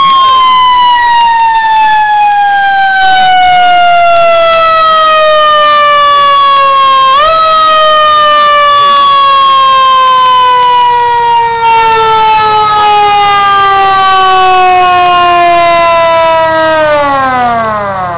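Federal Q mechanical siren on a fire engine winding down: its loud wail falls slowly in pitch as the rotor coasts. About seven seconds in it gives a short upward jump, then keeps falling, and near the end it drops quickly to a low growl.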